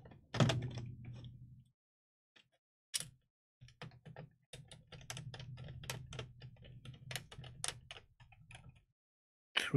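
A Sony VAIO laptop's plastic bottom case knocks once as it is set down, about half a second in. Then a hand screwdriver drives a case screw into it: a long run of small, quick clicks and ticks.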